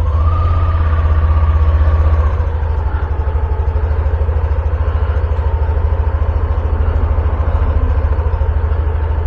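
Yamaha Aerox 155 scooter's single-cylinder engine idling just after starting. It runs a little higher and louder for the first two seconds or so, then settles to a steady idle.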